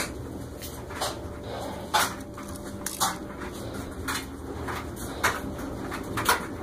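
A series of light knocks and clicks, about one a second, over a low steady hum.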